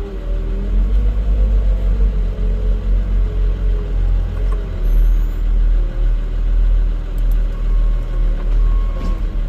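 Diesel engine of heavy farm machinery running under load, its pitch rising and falling as it works. From about three-quarters of the way in, a reversing alarm beeps repeatedly.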